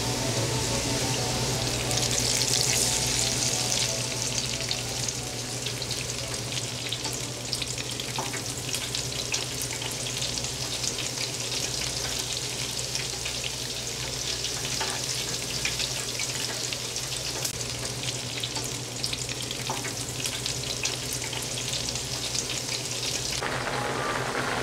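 Battered shrimp deep-frying in clean oil: a dense, crackling sizzle with many fine pops as batter drops into the fryer.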